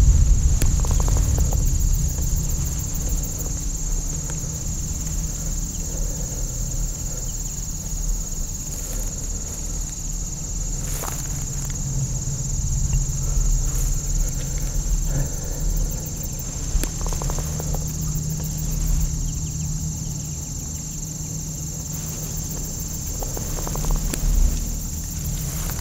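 Steady high-pitched trilling of insects in the field, with a low rumble underneath and a few faint rustles and snaps.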